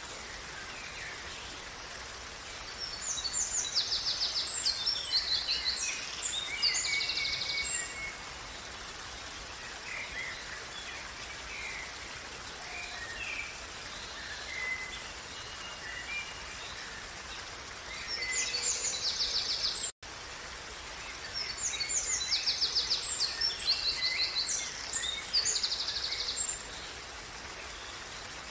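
Steady rush of a small stream's running water, with a songbird singing loud, high songs of fast repeated notes: two long ones, near the start and in the latter part, and a shorter one in between that cuts off abruptly. Scattered softer chirps fall between the songs.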